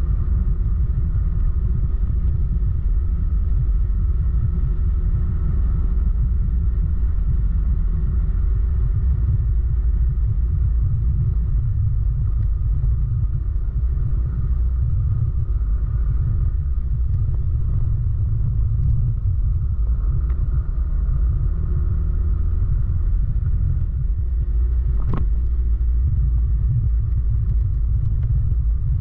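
Motorcycle riding at a steady speed: a continuous low rumble of wind and road noise on the microphone, with a faint steady engine drone. A single short click a few seconds before the end.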